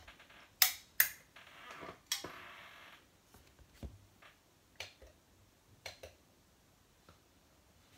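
Handling noise: a series of sharp clicks and knocks, about seven in all, with a short stretch of rustling in the first few seconds.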